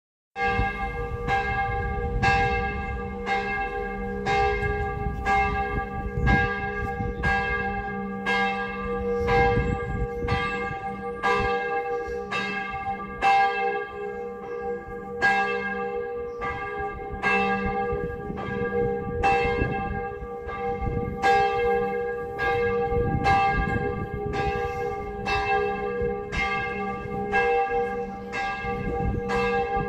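A single church bell ringing steadily, about one stroke a second, each stroke ringing on into the next.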